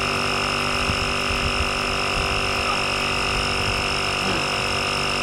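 Portable tire air compressor running with a steady, unchanging hum while inflating the plugged tire.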